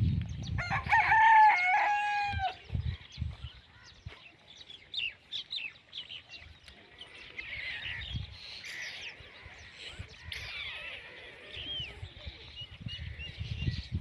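A rooster crows once about a second in, a single long held call that drops at the end. Small birds chirp on and off throughout, over a low rumble near the start and end.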